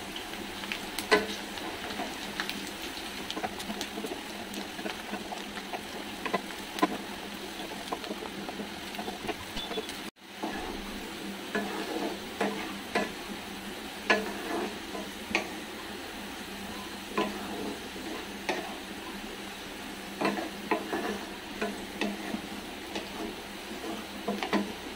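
Sliced onions frying in hot oil in a metal kadai: a steady sizzle, with a wooden spatula stirring and scraping against the pan in scattered clicks. The onions are being fried to a light golden brown. The sound drops out briefly about ten seconds in.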